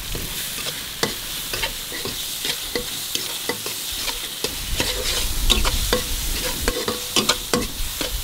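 A metal spatula scrapes and knocks against a heavy iron kadai as crushed garlic, ginger and dried red chillies fry, sizzling in hot oil. A low rumble joins about halfway through.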